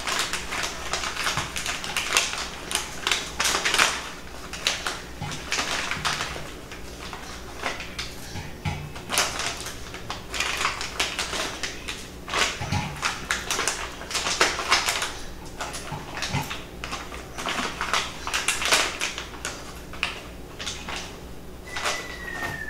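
Plastic mandarin bag crinkling and mandarins clicking and knocking as they are handled and set down on a tiered serving stand, in an irregular run of sharp clicks. A short falling whistle near the end.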